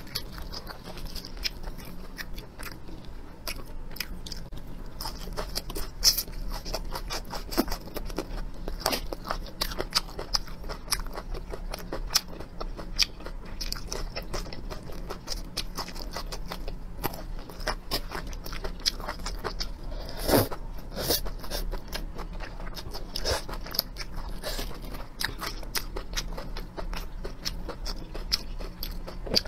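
Close-up chewing and crunching of fried long green chili peppers and water spinach: a dense run of irregular wet crunches, with a few louder bites.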